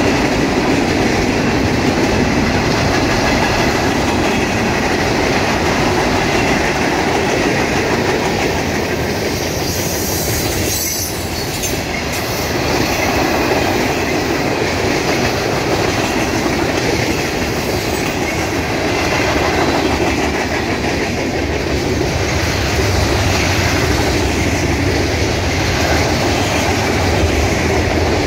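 CSX freight train rolling past, its wheels clacking over the rail joints in a steady run of noise.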